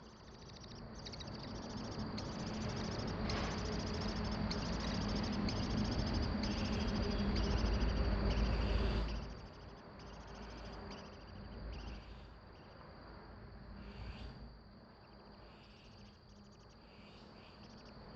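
Insects trilling, a high pulsing buzz broken by short gaps, over a low rumble that drops away about nine seconds in.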